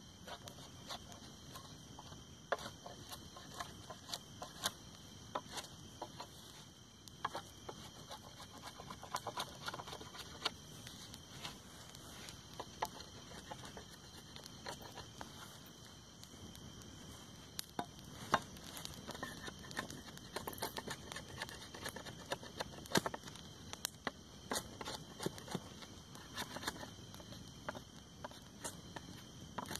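A knife shaving and scraping bark off a wooden stick being made into a tool handle, mixed with the irregular crackle and pops of a campfire. A steady high-pitched whine runs underneath.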